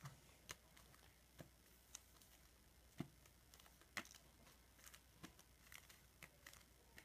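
Near silence with scattered faint clicks and ticks of trading cards being handled and shuffled through, a click every second or so.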